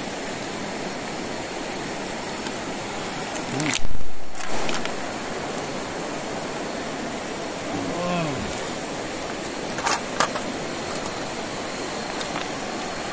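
A shallow river running steadily over a stony bed. A sudden loud thump comes about four seconds in, short voice sounds come around then and again midway, and two sharp clicks come near ten seconds.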